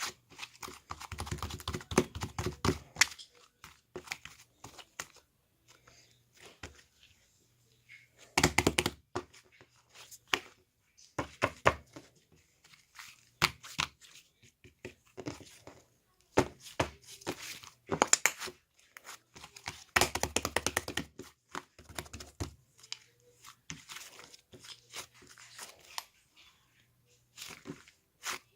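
Homemade slime being squished and kneaded by hand, giving sticky crackling and popping in irregular bursts with short pauses between.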